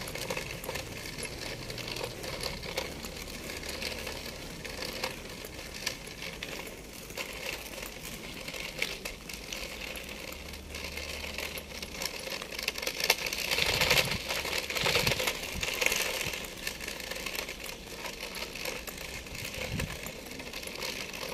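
Footsteps and handling noise from walking with a handheld phone: irregular light clicks and rustles over outdoor street background noise, growing louder and hissier for a few seconds just past the middle.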